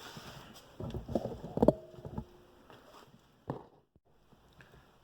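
A few knocks and clunks, one followed by a brief ring, and a last sharp knock a little past the middle.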